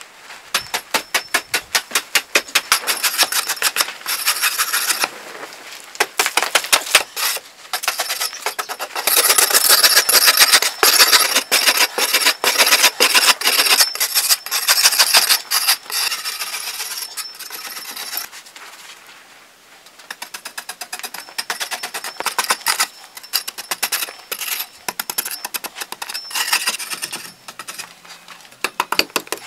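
A metal blade on a wooden handle chopping into a soft earthen pillar, fast strikes several a second, each with a short metallic ring. The strikes ease off briefly a little past the middle.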